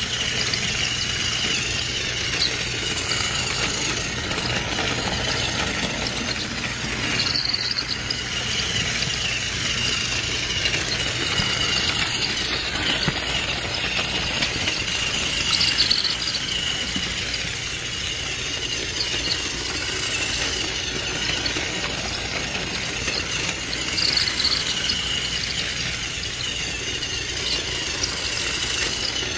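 A small electric motor running steadily with a high whine and a light rattle, typical of a battery-powered toy train on plastic track. It swells briefly about every eight seconds.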